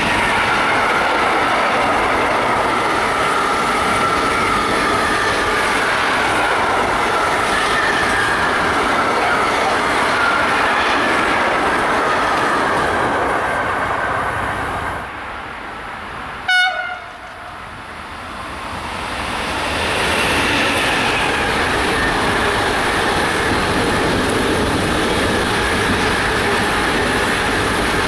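Freight train of tank wagons rolling past on the rails, a loud steady rumble of wheels on track that fades away about 14 seconds in. Near the middle comes one short train horn blast. From about 19 seconds a second freight train of car-carrier wagons comes past, with the wheel and rail noise rising back to a steady level.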